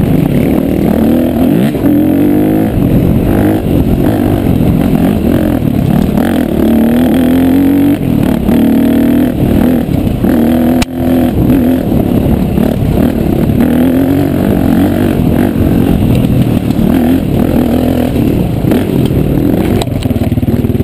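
Off-road motorcycle engine heard from on the bike, revving up and falling back over and over as it is ridden along a dirt trail. There is a sharp click with a brief dip about eleven seconds in.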